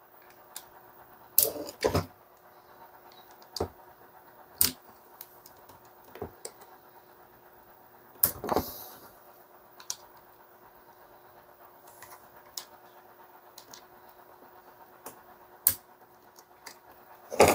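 Scattered light clicks and knocks, about a dozen spread irregularly, with a longer scraping rattle about 8 seconds in. They come from a small screwdriver working the screws out of a Bosch PSB 550 RE drill's plastic housing while the drill is shifted about on a wooden desk.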